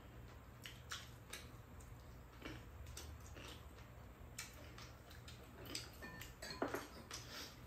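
Metal chopsticks and a spoon clicking and tapping against bowls and a pot during a meal: scattered light clicks, a few sharper ones near the end, over a faint low hum.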